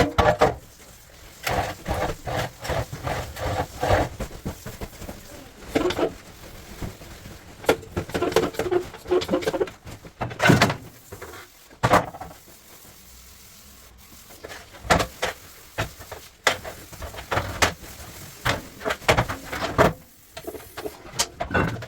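Irregular knocks, clicks and scraping from hand work on the parts of a top-loading washing machine being taken apart and cleaned.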